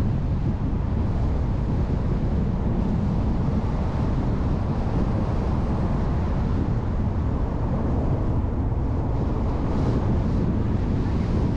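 Steady low wind rumble on a car-mounted GoPro's microphone, mixed with the road and engine noise of the car driving.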